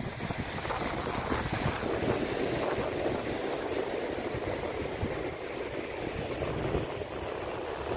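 Ocean surf washing on the shore, building about a second and a half in and easing near the end, over a low rumble of wind on the microphone.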